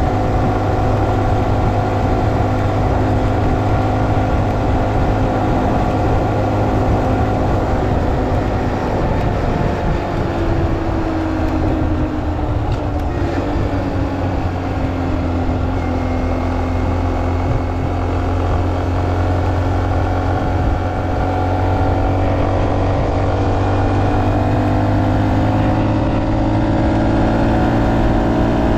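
A 2023 Honda Monkey's 125cc single-cylinder engine running at a steady cruise, heard from on the bike. Its pitch eases down about ten seconds in, then climbs slowly again, over a steady low rumble of wind on the microphone.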